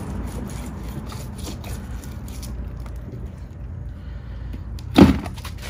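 A knife slicing open a raw silver mullet on a wooden board, with faint scraping ticks against a steady low background noise. A single loud thump comes about five seconds in.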